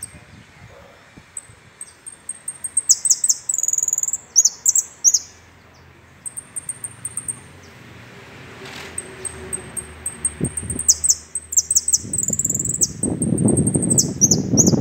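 A caged saffron finch (jilguero) singing in two bouts of quick, high-pitched chirps and trills, with a short pause between them. A low rustling noise comes in during the last few seconds.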